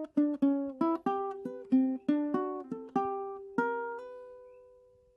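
Solo ukulele picking a short melody in single plucked notes, the last note, about three and a half seconds in, left to ring and fade away.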